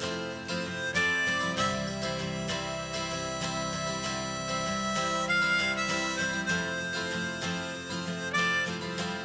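Background music: harmonica melody over strummed acoustic guitar, in a blues style.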